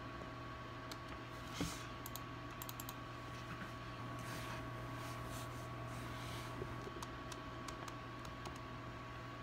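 Scattered light clicks and taps from working a computer keyboard and mouse, over a steady low electrical hum.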